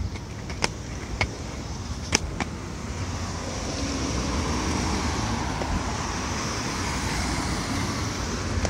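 Road traffic: a car passing on the street, its tyre and engine noise swelling from about three seconds in and holding. Four sharp clicks come in the first two and a half seconds.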